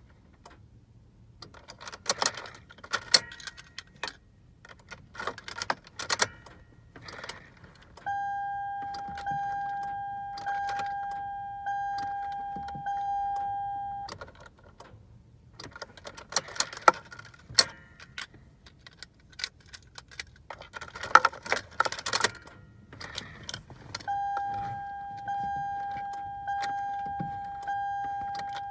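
Keys jangling and clicking in the ignition of a 2005 Toyota Sienna as the key is worked again and again without the engine starting. Between the tries, a dashboard warning chime sounds in two runs of about six seconds, one steady tone repeating about every 1.3 s.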